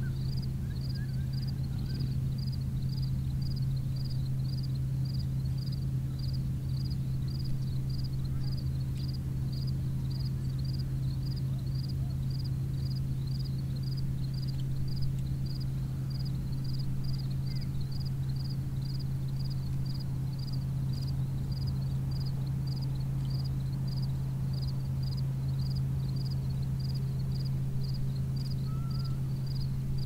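Outdoor ambience: a steady low hum, with a short high chirp repeating evenly a little over once a second.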